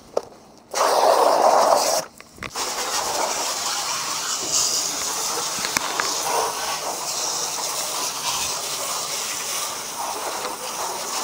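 Water spraying from a garden hose nozzle: a short, louder spurt about a second in, then a steady hiss of spray that runs on through the rest.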